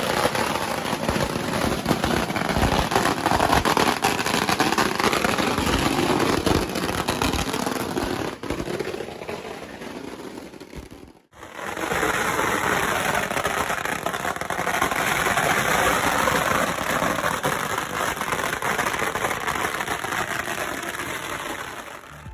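Pagara firecracker strings going off in a continuous dense crackle of rapid small bangs. It cuts out abruptly about eleven seconds in, then another long stretch of crackling follows.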